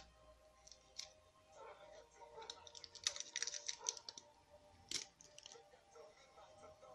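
Clicks and taps on a Samsung laptop keyboard: one click about a second in, a quick run of clicks between about two and a half and four seconds in, and a sharp click near five seconds.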